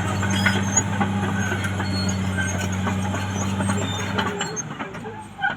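Caterpillar D6R XL bulldozer's diesel engine running with a steady low note. The note drops away about four seconds in, followed by a brief sharp sound near the end.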